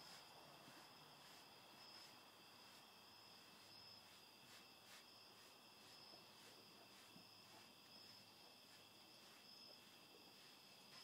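Near silence with faint, steady cricket chirping: thin high tones held throughout, pulsing at a regular beat.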